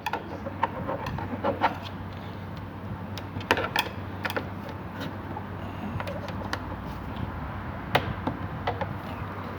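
Irregular plastic clicks and knocks as a car's inner door trim panel is pried loose from the door, over a steady low hum; the sharpest click comes near the end.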